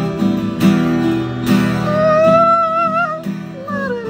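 Two acoustic guitars strummed together, with a male voice singing a long held, wavering note in the middle.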